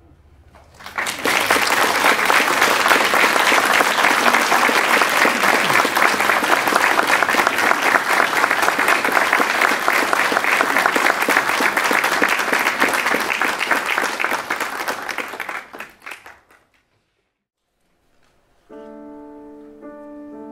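Audience applauding for about fifteen seconds, then cutting off abruptly. After a moment of silence, a grand piano starts playing sustained chords near the end.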